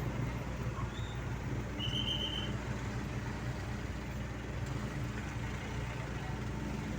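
Heavy equipment engine running steadily with a low hum. A brief high tone sounds about two seconds in.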